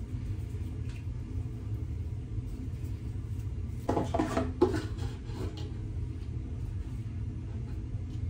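Steady low hum of room noise, with a brief rustle and handling noise about four seconds in as a section of hair is twisted and held.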